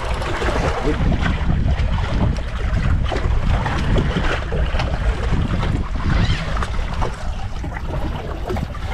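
Wind buffeting the microphone, with the sea washing around a small boat.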